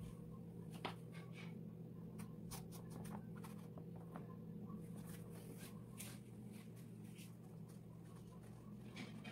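Faint, scratchy rubbing and a few soft clicks of a hand spreading epoxy resin across a painted canvas, over a steady low hum.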